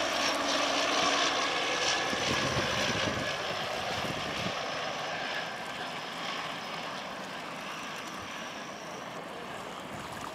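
De Havilland Canada Otter floatplane's engine and propeller running at approach power, with a thin high whine over the propeller noise, gradually fading as the plane descends toward the water to land.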